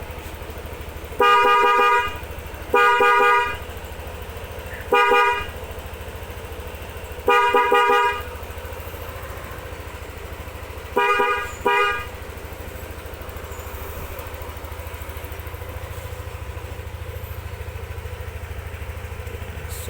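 Pair of Denso waterproof electric horns on a Yamaha NMAX sounding in six honks over the first twelve seconds. The first, second and fourth are held just under a second, the third is short, and the last two are short and close together. A steady low hum runs underneath.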